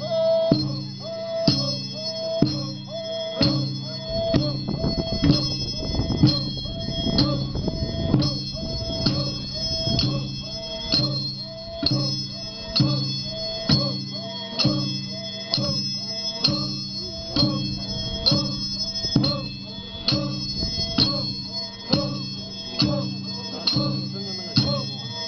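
Naga warriors chanting in unison for a war dance, in a steady rhythm of about one beat a second.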